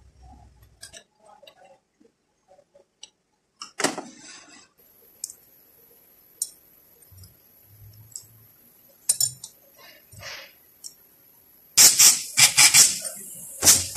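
Light clinks of transmission parts being handled. Then, about twelve seconds in, repeated loud bursts of compressed air hiss from an air nozzle blowing into a clutch drum: an air pressure check of the clutch piston seals for leaks.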